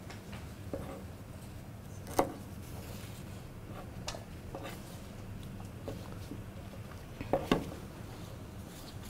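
A kitchen knife tapping on a cutting board and the clatter of handling cut broccoli stalks: a few scattered knocks, the loudest about two seconds in and a quick pair near the end, over a steady low hum.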